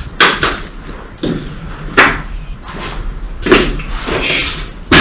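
A series of loud knocks and crunching scrapes, about one every second or so, with a longer scrape about three and a half seconds in.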